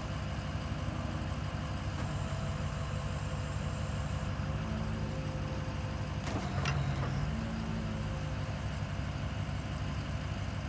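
Geoprobe direct-push drill rig's engine and hydraulics running steadily, with a brief louder surge and a knock about six and a half seconds in as the hydraulic control levers are worked.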